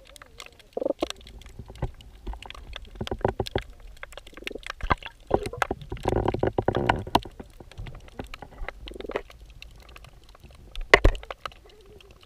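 Muffled underwater sound through a GoPro's waterproof housing: irregular clicks and knocks with low sloshing rumbles of stirred water, busiest about six to seven seconds in, with a sharp knock near eleven seconds.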